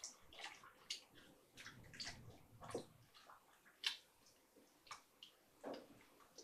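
Faint, irregular small water sounds and clicks from the madder dye bath and the wet fabric in its container, with one sharper click a little before four seconds in.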